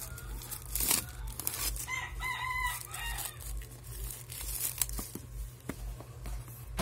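Plastic shrink-wrap crinkling and tearing as it is peeled off a small cardboard box, in scattered crackles. A chicken clucks a few short notes about two seconds in.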